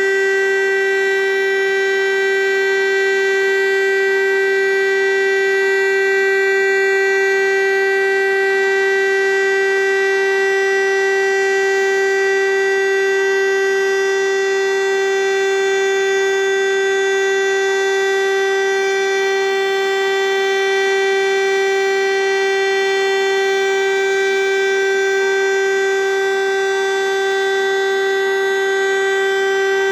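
DS 977 siren sounding a loud, steady, unwavering tone at one pitch with overtones. This is the continuous test tone of a siren test.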